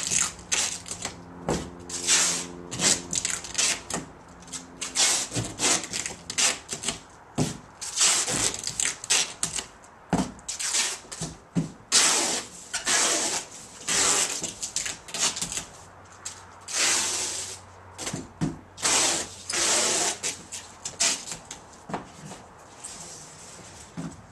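Packing tape being pulled off a hand roll in repeated short bursts and pressed and rubbed onto a large cardboard box, with cardboard rustling in between.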